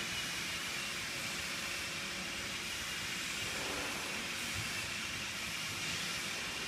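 REHOO FIA-1800 fabric inspection machine running, cloth feeding steadily over its rollers: an even hiss with a faint low hum underneath.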